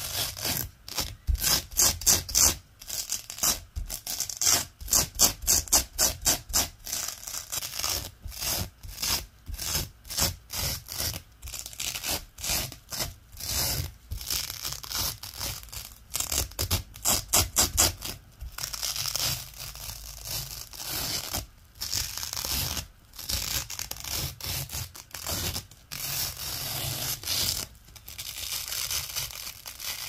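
Strips of loop-side Velcro dragged over a hook-side Velcro base, giving a crunchy, crackling rasp in rapid repeated strokes with short pauses between runs.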